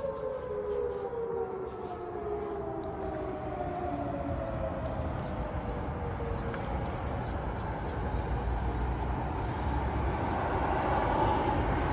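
Air-raid siren winding down: its held tone slides slowly lower and fades over about six seconds. City noise grows louder toward the end.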